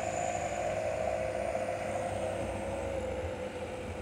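Trucks driving uphill, heard from the open cargo bed of one of them: steady engine and road noise with a held whine that drops slightly in pitch after about two seconds.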